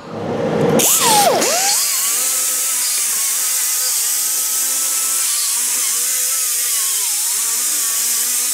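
Small die grinder with a disc grinding down a cured fiberglass repair patch on a boat hull. It starts about a second in, its pitch dipping deeply once and recovering. It then runs steadily with a high whine that sags and wavers as it is pressed into the work, over a loud hiss.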